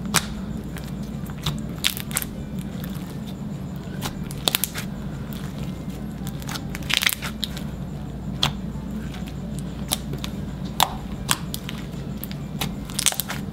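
Metallic gold slime being kneaded, poked and stretched by hand, giving irregular sharp clicks and pops, about eight of them, over a steady low hum.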